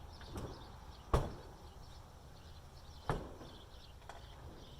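Two sharp knocks about two seconds apart, with fainter taps around them, over birds chirping.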